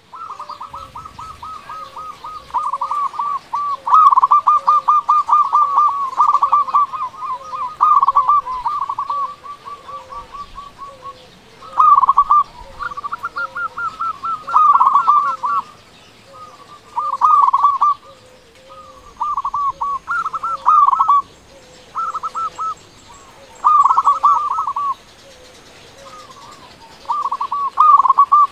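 Zebra dove (perkutut) cooing its song: rapid trilled runs of short staccato notes, a long bout and then shorter phrases every couple of seconds. A fainter, lower note repeats about once a second underneath.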